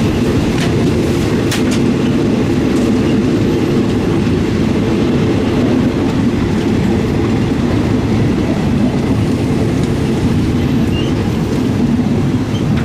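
Train wheels running over the rails, heard from inside a Thai third-class railway carriage: a steady low rumble with a few sharp clacks in the first three seconds.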